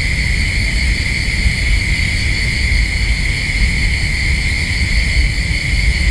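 Steady low rumble under a constant high-pitched insect chorus.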